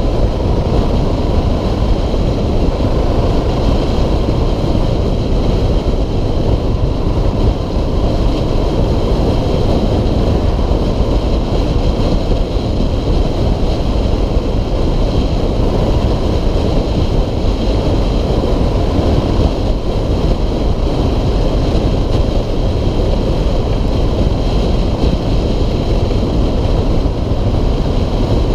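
Steady wind rush buffeting the microphone on a moving 2006 Suzuki DR650SE, with the bike's single-cylinder engine running underneath at a constant cruise.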